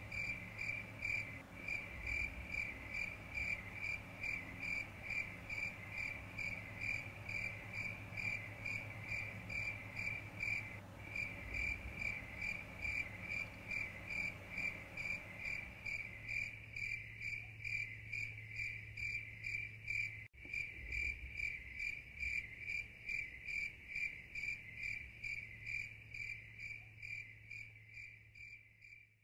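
A cricket chirping in a quick, even rhythm, over a faint low steady hum. It fades out at the very end.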